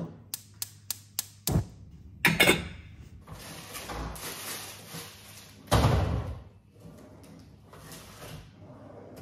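Gas range burner's spark igniter clicking about four times a second, then the burner catching with a soft low thump. After that a refrigerator drawer is pulled open and rummaged through, with clunks and a louder thud about six seconds in.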